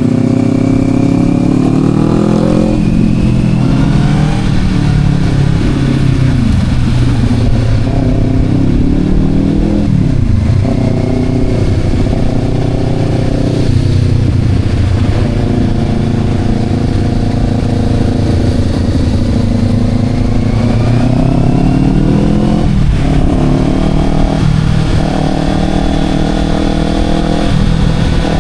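Sport motorcycle engine under way, rising in pitch as it accelerates and dropping sharply at gear changes, around three seconds in and again near ten and twenty-three seconds in, with steady cruising stretches between.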